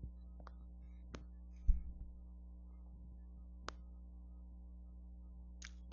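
Low steady hum of a home voice recording between spoken passages, with a few faint clicks, one dull low thump about two seconds in, and a short hiss near the end.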